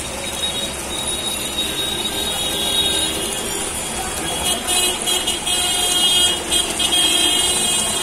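Road traffic noise with short vehicle horn toots, which come more often in the second half.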